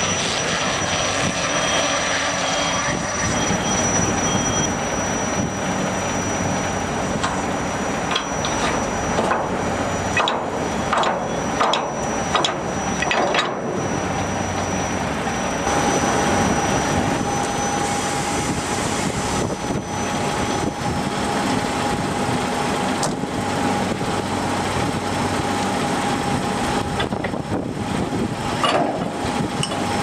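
Heavy truck running at low speed as it maneuvers a container trailer, with a run of knocks and clatters for several seconds in the middle and a thin steady whine through the second half.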